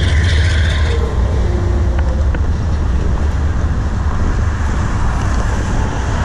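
Freight cars rolling past on the rails with a steady rumble, a high wheel squeal fading out about a second in, and wind buffeting the microphone.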